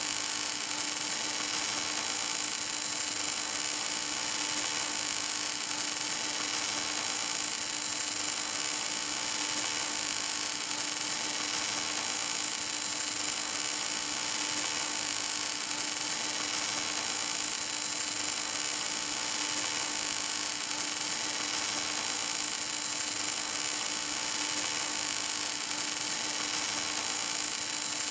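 Welding arc of an HK-11W automatic pipe welding machine burning continuously: an even, unbroken hiss with a steady hum underneath.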